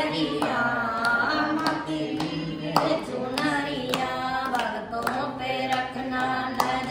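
A group of voices, women's and children's among them, singing a Hindu devotional bhajan together, with hand claps keeping a steady beat about twice a second.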